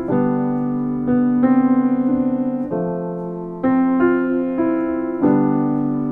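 Background piano music: slow chords and single notes, each struck and left to ring and fade.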